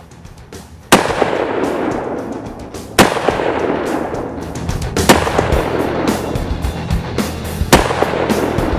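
Four hunting-rifle shots fired at a black bear, roughly two seconds apart, the first about a second in. Each crack is followed by a long rolling echo.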